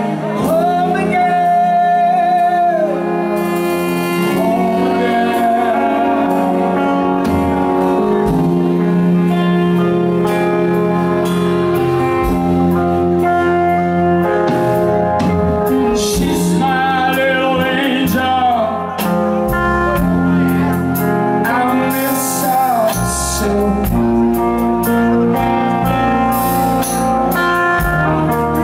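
Live blues-rock band playing: two electric guitars, one a Gibson Les Paul, over a Sonor drum kit, with a man singing at the microphone.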